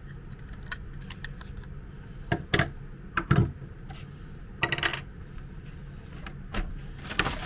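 An old extension cord being handled on a table: several short knocks and scrapes as its plastic socket and coiled cable are moved and laid down, over a steady low hum.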